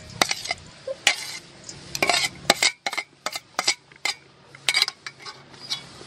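Metal plate knocking and scraping against the rim of a stainless steel mixing bowl as shredded green mango is pushed off it into the bowl: a quick irregular run of sharp metallic clinks and scrapes that stops shortly before the end.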